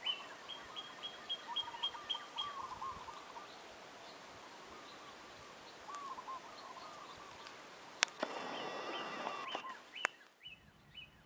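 Small birds singing: for the first couple of seconds a quick run of short high chirps, about four a second, over lower warbling notes, with more warbling later. About eight seconds in, a sharp click is followed by a louder spell of calls, and another click comes near the end.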